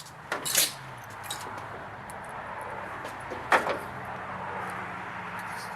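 Hand cutters working on rubber power steering hose: a short crunch about half a second in and a single sharp snap about three and a half seconds in, over a steady low hum.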